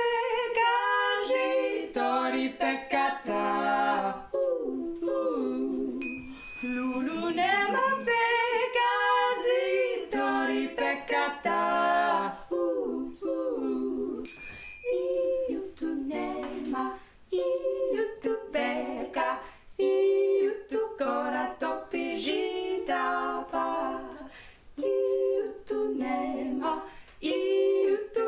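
Women's voices singing an Armenian folk song a cappella, long sung lines at first, then short rhythmic phrases in the second half. Two brief high ringing sounds come in about six and fourteen seconds in.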